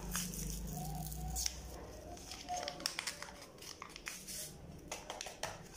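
Small vanilla sugar sachet being torn open and crinkled by hand, a scatter of faint short rustles and clicks. A low steady hum runs under it and stops about a second and a half in.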